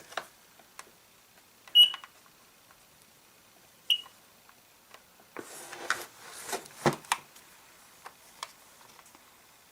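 Small hand-work sounds of fitting rubber fuel lines onto a chainsaw primer bulb: scattered light clicks and taps, two short high squeaks about two and four seconds in, and a cluster of rubbing and knocks a little after five seconds.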